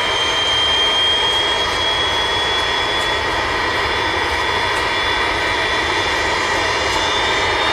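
McDonnell Douglas MD-82 jet engines running on the runway: a steady jet roar with a high whine whose pitch creeps gently upward.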